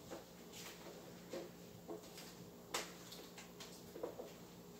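Faint, scattered light taps and rustles of chopped vegetables being pushed off a plastic cutting board into a pot, the loudest tap a little before halfway.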